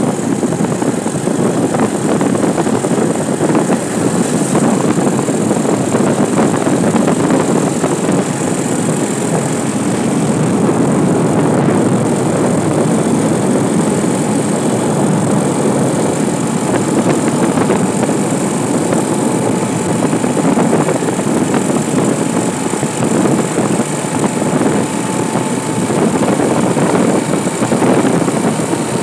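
Steady drone of a moving vehicle's engine mixed with wind rushing over the microphone, heard from on board the vehicle as it drives along a road.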